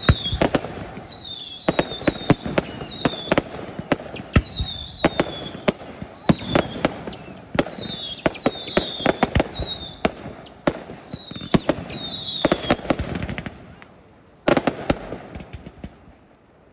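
Fireworks display: a rapid barrage of whistles, each falling in pitch, over a dense string of sharp bangs. The barrage stops about thirteen seconds in, and a last short cluster of bangs follows near the end.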